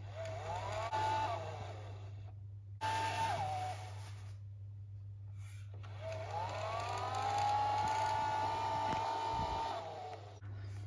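SOMA Smart Shades 3 motor whining as it drives the blind's bead chain, started and stopped by swipes on the motor. It makes three runs: one of about two seconds, a short one of about a second, then a longer one of about four seconds. Each rises in pitch as it starts, then holds steady.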